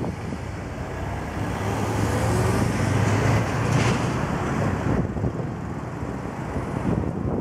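Road traffic: a motor vehicle passing close by with a low engine hum, loudest two to four seconds in, then easing.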